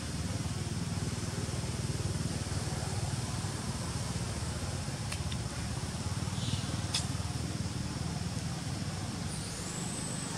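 Steady low outdoor rumble, with a couple of faint sharp clicks midway and a brief high thin sound near the end.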